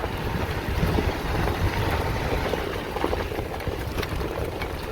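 Heard from inside the cab of a 4x4 crawling a rutted dirt trail in four-wheel low: a steady low rumble of engine and tyres, with scattered knocks and rattles as the vehicle rocks over the bumps.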